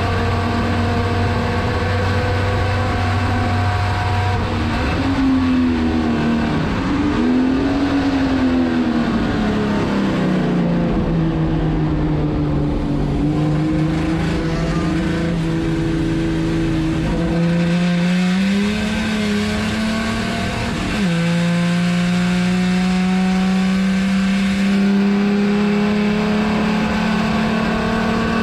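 Chevrolet Opala 250's straight-six race engine heard from inside the cockpit, working hard on track. The note holds high at first, falls and wavers through the middle, climbs again, drops suddenly at a gearshift about three-quarters of the way through, then climbs once more.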